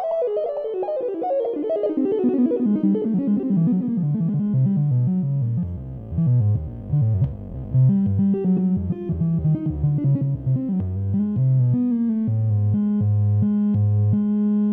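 Ondes Martenot played from its keyboard. A quick run of notes falls from high to low over the first six seconds or so, then a figure of low bass notes alternates and repeats.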